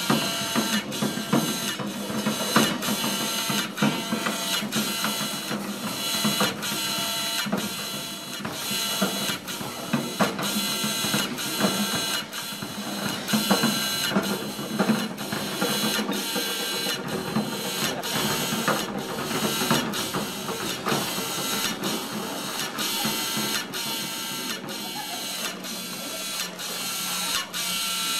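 Rhythmic mechanical clicking, about two clicks a second, over steady whining tones, like a machine running.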